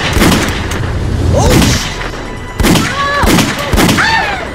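Gunfire: several sharp bangs from a handgun, with wordless shouting and yelling between them.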